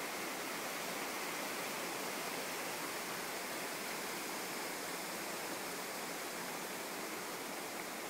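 Steady, unbroken rushing of running water, an even hiss with no pauses or separate events.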